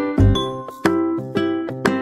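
Background music: a light plucked-string tune with a bass line, a new note about every half second.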